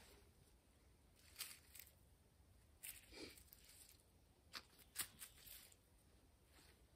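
A few faint clicks and rustles from a bow saw being handled and laid down on the ground, with near silence between them.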